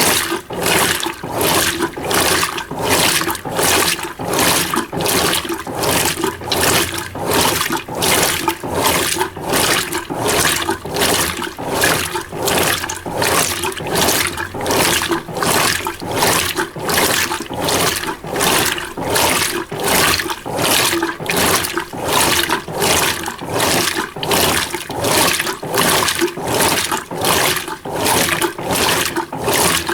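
Mueller Energy 8 kg top-loading washing machine filling with water on a low water level. The rush of water swells and fades evenly, about one and a half times a second.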